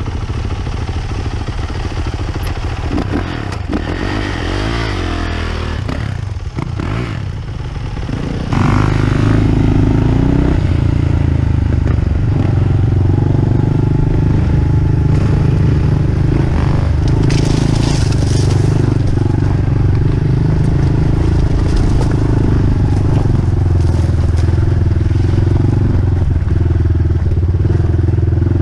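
Dirt bike engine running, its revs rising and falling a few seconds in. About eight seconds in it gets abruptly louder and settles into a steady drone as the bike rides along under power.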